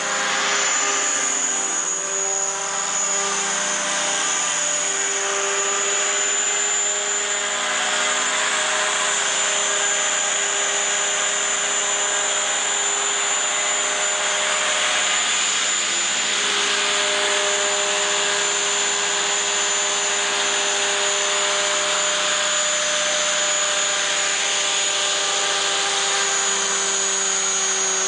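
Align T-Rex 500 electric RC helicopter running: a steady high motor-and-gear whine over a steady rotor hum, the pitch dipping slightly near the end.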